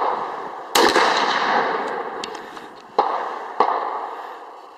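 Gunshots on a range: one loud shot about a second in that trails off with a long rolling echo, then two more shots about half a second apart near three seconds in, too close together for a single bolt-action rifle.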